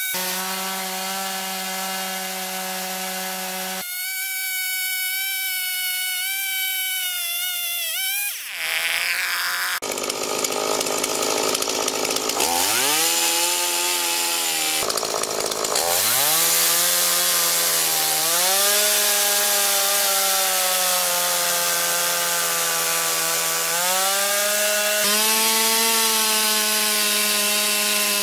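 Stihl MS 170 two-stroke chainsaw ripping lengthwise along a log in a chainsaw mini mill. The engine runs at a steady high speed, drops sharply in pitch about eight seconds in, then revs back up several times and runs on steadily through the cut.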